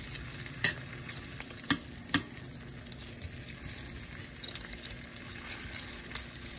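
Beef breakfast sausage links frying in oil in a stainless steel pan, a steady sizzle with three sharp pops in the first couple of seconds.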